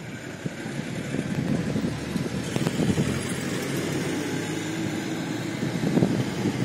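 Steady background road-traffic noise, vehicle engines running, with a few small clicks over it.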